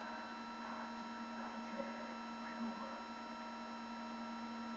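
Steady electronic hum of a trail camera's own recording circuitry, several constant tones, with a few faint, short sounds from the clearing mixed in.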